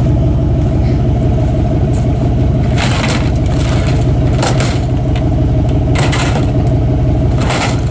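1989 Ford F-150 pickup driving, heard from inside the cab: a steady low engine and road drone, with four short clattering bursts spread through it.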